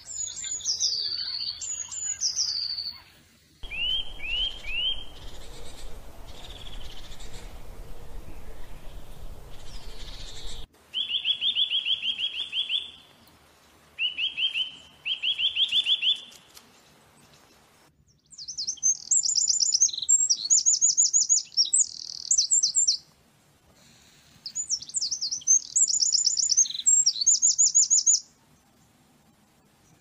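Songbirds singing: series of short whistled notes, some sliding down, some sliding up, then rapid high trills, in stretches that start and stop abruptly. A low rumble runs under the second stretch.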